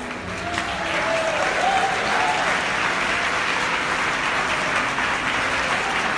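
Audience applauding, the clapping swelling about a second in and then holding steady.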